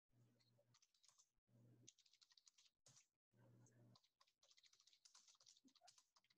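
Very faint typing on a computer keyboard: scattered, irregular key clicks.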